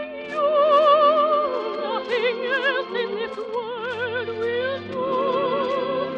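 Operetta music from an old radio broadcast recording: the orchestra plays while a melody moves through sustained notes, each held with a wide vibrato, over steady lower chords.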